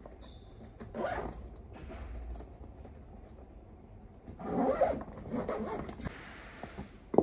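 Zipper on a fabric duffel bag being pulled open or shut, two rasping pulls: one about a second in and a longer one around the middle. A sharp click near the end.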